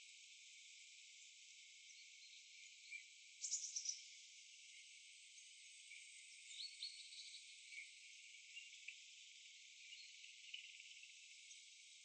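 Near silence: a faint steady hiss broken by a few short clusters of sharp clicks, the loudest about three and a half seconds in and more around the seventh second: a red squirrel gnawing a walnut shell.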